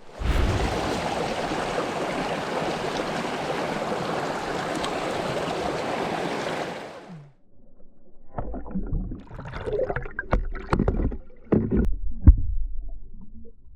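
Rushing stream water, a loud steady hiss that cuts in at once and stops sharply after about seven seconds. Then a run of irregular knocks and thumps, the loudest about twelve seconds in.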